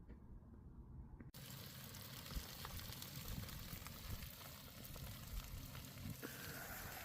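Food sizzling over a campfire grill, a steady hiss with scattered small crackles, starting abruptly about a second in.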